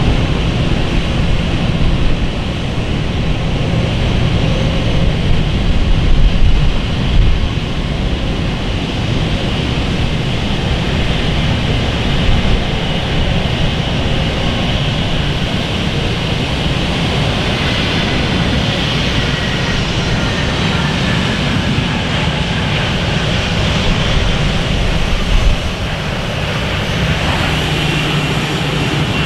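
Jet airliner engines running in a steady low rumble with a hiss above it, and a whine that slowly falls in pitch partway through.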